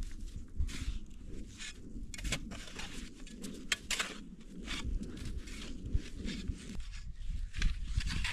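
Small hand shovel digging and scooping snow: a quick series of crunching scrapes, over a low steady rumble.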